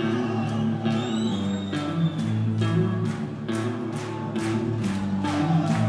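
Live rock band playing: a steady drum beat with cymbal strikes over held electric guitar and bass notes.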